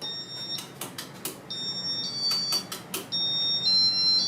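Casablanca Intellitouch ceiling fan control beeping as it is keyed into demo mode: a run of electronic chimes, each a steady chord of high notes about half a second long that changes pitch from one to the next, with sharp button clicks in between.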